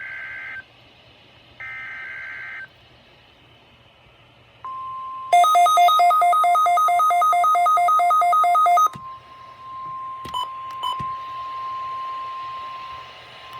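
Weather radio receiving an Emergency Alert System Required Weekly Test: two short screeching digital data bursts, then a steady warning tone starts about four and a half seconds in. A loud beeping alarm, two pitches alternating about five times a second, sounds over it for about three and a half seconds, then two clicks while the steady tone goes on.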